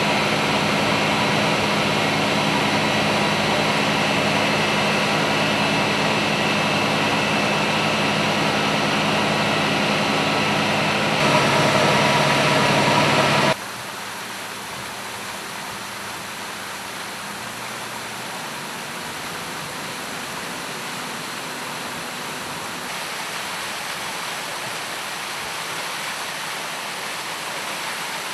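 Fire engine's pump running steadily with its engine drone and hiss while pumping out floodwater through the hoses. About halfway through it cuts to a quieter, even rushing of water gushing from the discharge hose outlet.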